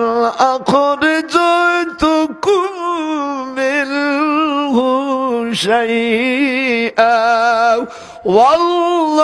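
A preacher chanting in a drawn-out, melodic voice: long wavering held notes in a series of phrases with short breaks, pausing briefly near the end before starting a new phrase.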